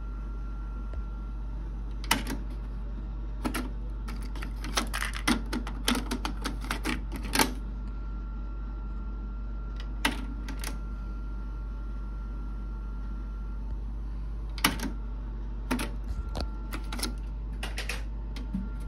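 JVC TD-W95 cassette deck's transport buttons and tape mechanism clicking and clunking as they are operated: sharp mechanical clicks, single and in quick clusters, over a steady low hum.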